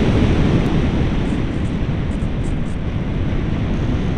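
Wind rushing over the microphone of a camera carried on board a flying RC plane: a loud, steady, low rushing noise.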